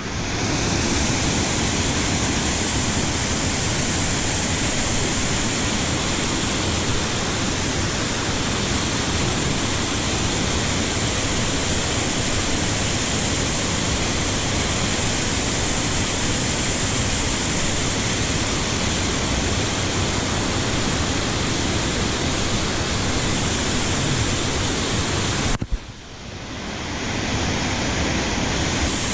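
Steady rushing of mountain-stream water. It cuts out abruptly near the end and fades back in.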